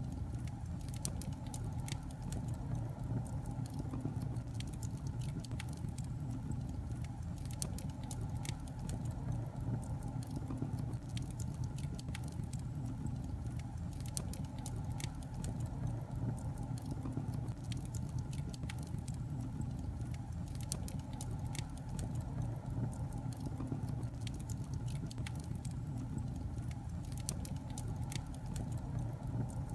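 Wood fire burning in a fireplace: irregular crackles and small pops over a steady low rumble of the flames.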